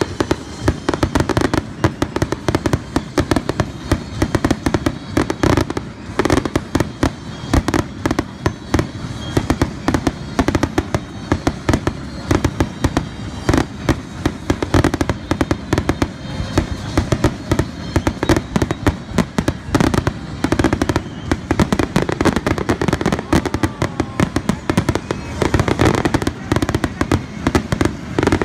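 Aerial fireworks display: a dense, continuous barrage of shell bursts and crackling, several loud bangs a second with no let-up.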